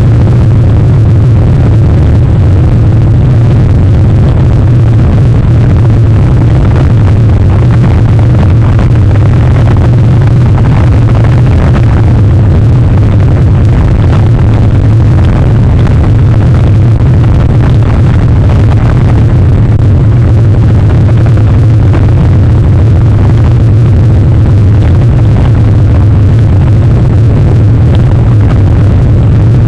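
Loud, steady wind noise buffeting an outdoor microphone, mostly low in pitch.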